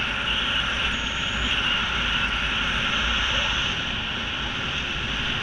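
Steady rush of wind over a skydiver's camera in flight, a constant hiss with a heavy low rumble of wind buffeting the microphone.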